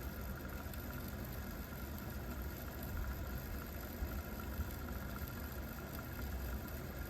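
Sony TC-KA7ES cassette deck fast-forwarding a test tape: a steady low whir from the transport motor and spinning reels.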